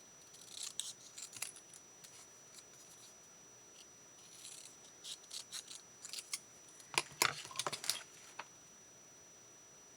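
Scissors snipping through cardstock in short runs of quick cuts, the sharpest snips coming about seven to eight seconds in.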